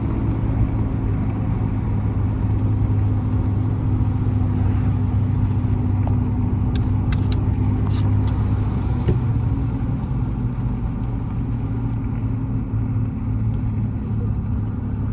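Steady drone of a moving car heard from inside the cabin: engine hum and road noise, with a few brief clicks about halfway through.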